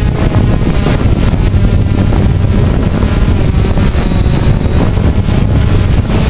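Quadcopter drone's propellers and motors heard from its own onboard camera, a loud steady buzz mixed with wind buffeting the microphone.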